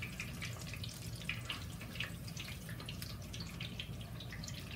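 Mackerel patties frying in shallow vegetable oil in a skillet, the oil sizzling with a steady run of small crackles and pops.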